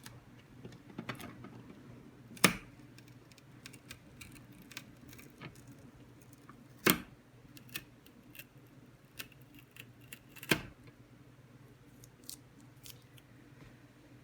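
Plastic parts of a pet water fountain being handled: scattered light clicks and ticks, with three louder knocks about two and a half, seven and ten and a half seconds in.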